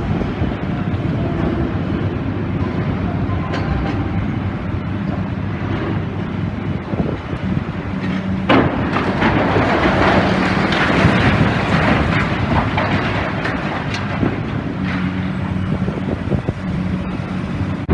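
Demolition excavator's diesel engine running steadily as it works. About halfway through there is a sharp bang, followed by several seconds of crashing and clattering as demolished building material comes down.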